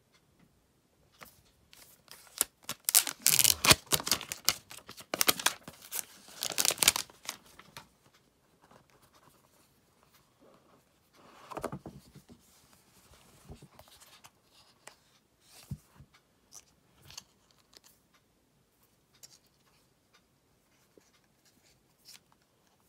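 The seal on an iPhone 12 Pro box being torn open: several seconds of crackling, tearing paper. About halfway through comes a short rubbing sound as the box lid slides off, followed by light handling clicks of the box and phone.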